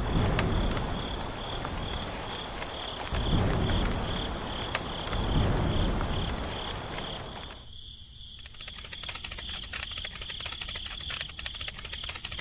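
Cricket chirping steadily in a rapid, even pulse, over low rumbling. After a brief break about eight seconds in, a fast ticking rattle comes in under the chirps.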